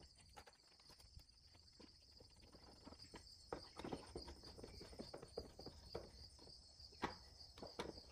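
Faint clicks and scrapes of small screws being driven by hand with a screwdriver through a metal mounting bracket into a junction box, thickening from about three seconds in. Crickets chirp steadily and softly throughout.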